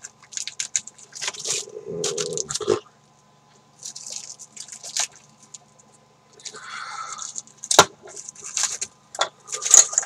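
Handling noises: rustling and scraping, broken by scattered clicks, with a single sharp click about eight seconds in.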